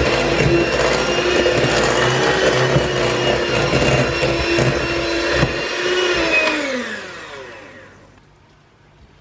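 Electric kitchen mixer running steadily, then switched off about six seconds in, its motor winding down with a falling whine until it stops.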